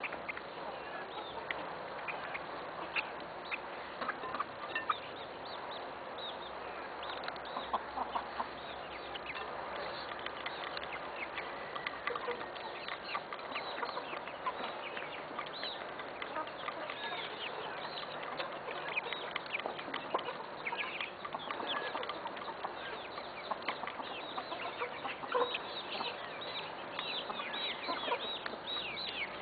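A flock of young Aseel chickens, stags and pullets, clucking and calling continually, with many short high calls that come thicker near the end.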